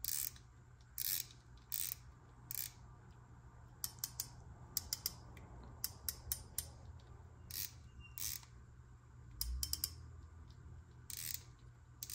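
Drag of a KastKing Kapstan SE spinning reel clicking as the front drag knob and spool are worked by hand, in short irregular runs of clicks with gaps between.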